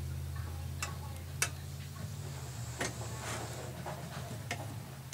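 Metal parts of a Rock-Ola 443 jukebox mechanism clicking irregularly as its pinned selector wheel is turned by hand, tooth by tooth, about half a dozen clicks, the sharpest about a second and a half in, over a steady low hum.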